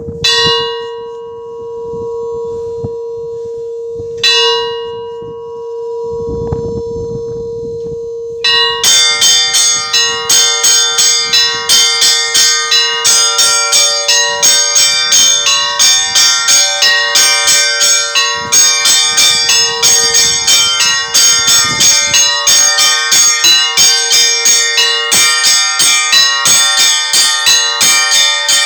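Orthodox cathedral church bells: a large bell struck twice, about four seconds apart, its hum ringing on between strokes. Then, from about nine seconds in, many bells are rung together in a fast, even peal of roughly two to three strokes a second.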